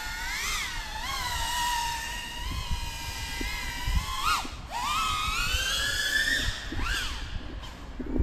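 GEPRC CineLog35 cinewhoop FPV drone's brushless motors and ducted propellers whining, the pitch swinging up and down with the throttle. About halfway through the pitch climbs steadily for a couple of seconds as the drone punches upward. A low rumble runs underneath.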